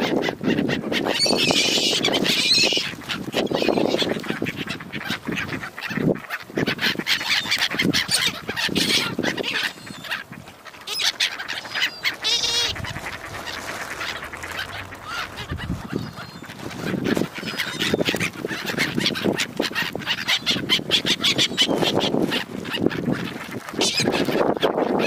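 A crowd of ducks and gulls being fed, calling continuously over one another, with quacks and shriller calls mixed in.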